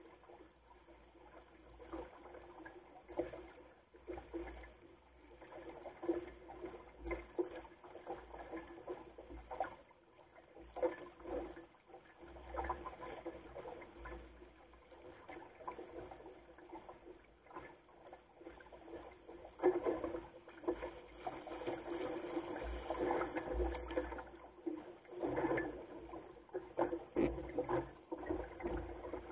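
Water splashing and gurgling against the hull and rudder of a Goat Island Skiff under sail, an uneven wash of small splashes, with low rumbles of wind on the microphone. The splashing grows louder about two-thirds of the way through.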